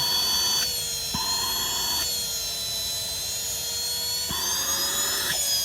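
Starument cordless handheld vacuum cleaner running, its small electric motor giving a steady high-pitched whine over a rush of air. The air noise drops back from about half a second in and comes up again near the end.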